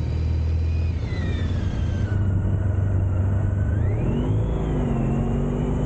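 Honda ST1300's V4 engine running steadily at low revs, then revving up about four seconds in as the motorcycle pulls away, dipping briefly and settling at a steady higher pitch. Heard from a camera mounted on the bike, with light wind hiss.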